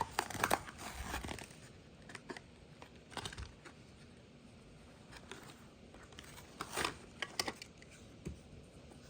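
Hot Wheels blister pack being opened by hand, its plastic bubble and cardboard backing crinkling and tearing in short spells of crackle. The busiest stretch is the first second or so, with more tearing about three seconds in and again near seven seconds.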